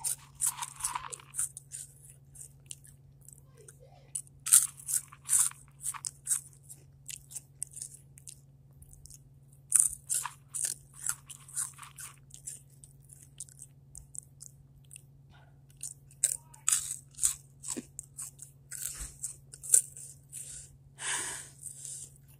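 Hot chips being crunched and chewed close to the microphone, in irregular runs of sharp, crackly crunches with short pauses between mouthfuls. A steady low hum runs underneath.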